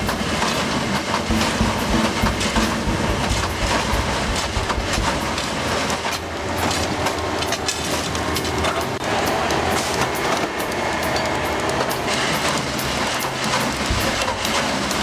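Railway ballast tamping machine at work: a steady loud mechanical din with dense clattering of stone as its vibrating tamping tines are driven into the ballast under the sleepers.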